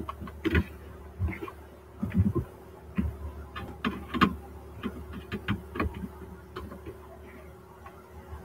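Irregular light clicks and knocks, a dozen or more spread unevenly, over a steady low hum.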